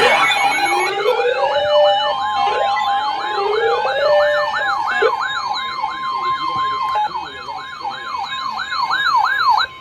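A siren in a fast yelp, its pitch sweeping up and down about three times a second, with two slower rising wails underneath and a steady tone joining about two seconds in. It stops abruptly near the end.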